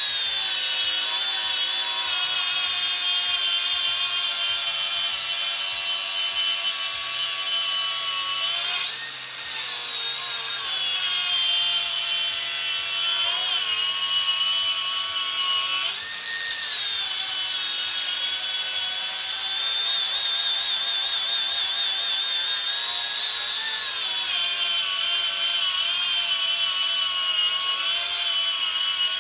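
WORX cordless angle grinder with a flap disc grinding the edge of a steel plate: a steady high motor whine over the rasp of the disc on metal. Twice the pitch and level sag briefly and pick back up. The motor holds its speed under load without bogging down.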